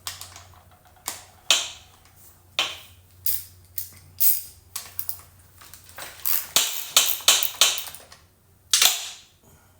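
Irregular sharp metallic clicks and clacks of hand tools being handled against the chainsaw, with a quicker run of clicks about six to eight seconds in.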